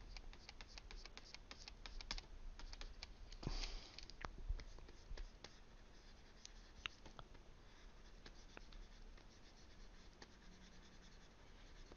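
Faint scratching and light tapping of a stylus on a graphics tablet while drawing, busiest over the first half, then only scattered ticks.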